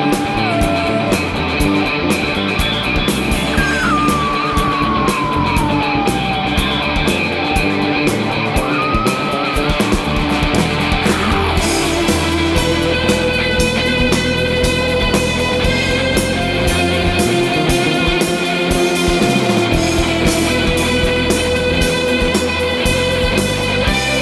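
Live rock band playing: electric guitars, bass guitar and drums. A lead line slides slowly down in pitch about four seconds in.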